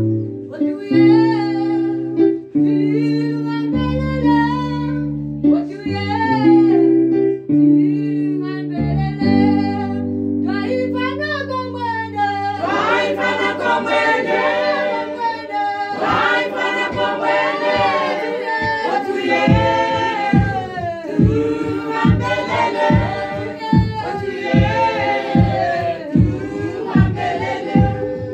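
A church choir singing a gospel song with instrumental backing. One lead voice sings over long held chords at first; about twelve seconds in, the full choir joins, and a steady beat of about two strokes a second sets in near the twenty-second mark.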